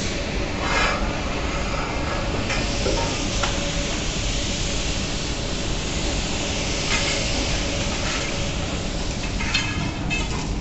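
Steady rushing, hissing noise of coal unloading from a BOBR hopper wagon into a railway track hopper, with a few brief knocks.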